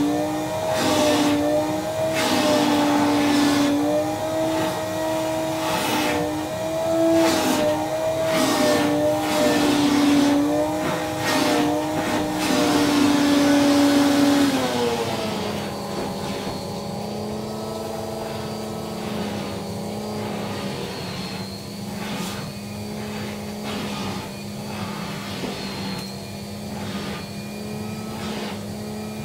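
Vacuum cleaner running, its hose and brush attachment drawn over a cat's fur. The motor's hum wavers in pitch, then drops lower and a little quieter about halfway through.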